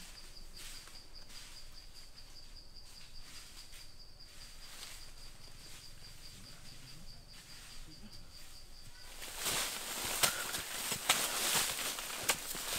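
A steady high insect trill over quiet forest background. About nine seconds in, the trill gives way to louder scraping and knocking as a hand tool digs into dry soil and leaf litter.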